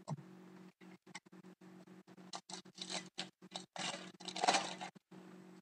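A foil hockey card pack from a 2011-12 Contenders box being torn open and crinkled, with pulled cards sliding out: a run of short rustling, tearing noises, loudest about four and a half seconds in.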